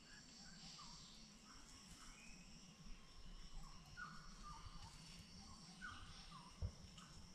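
Faint forest ambience: a steady high insect hum with short falling bird chirps repeating every second or so. A brief low thump about six and a half seconds in.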